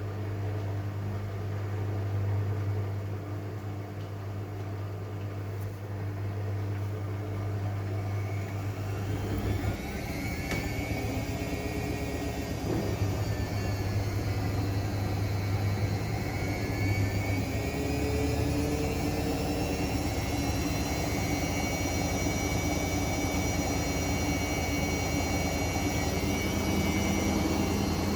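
Washing machine running with a low hum. About a third of the way in, a motor whine rises steeply in pitch, then holds high and fairly steady with slight wavering.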